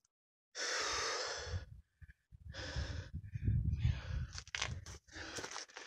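A hiker's heavy breathing close to the microphone. A long exhale starts about half a second in and a shorter one follows, over low rumble from handling and movement. Scattered scuffs and clicks of climbing on rock come near the end.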